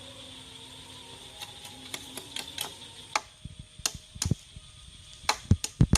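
Irregular sharp knocks and taps, sparse at first, then quicker and heavier in the second half, with a few dull thumps near the end.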